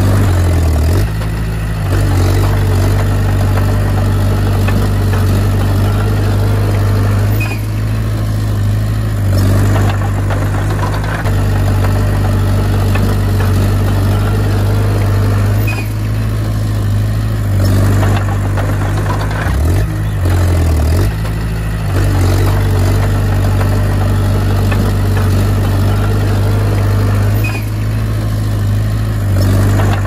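Komatsu D20P bulldozer's diesel engine running steadily while the dozer pushes soil, its revs shifting up and down every few seconds, with a brief wobble in pitch about two-thirds of the way in.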